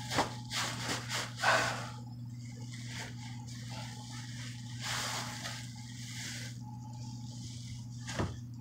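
Plastic shopping bags rustling and scraping as a toddler shuffles into a wooden kitchen cabinet, over a steady low hum, with one sharp knock near the end.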